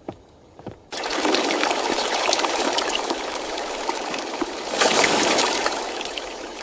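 A few light footsteps, then water suddenly starts gushing and splashing about a second in and keeps running steadily, swelling briefly near the end.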